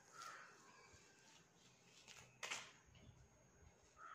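Near silence with faint handling of paper and masking tape: one short rasp about two and a half seconds in, as masking tape is peeled from the paper's edge.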